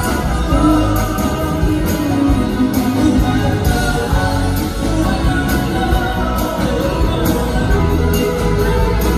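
Male singer singing a pop song with a live band, drums, guitar and keyboards, heard from the audience with the hall's echo.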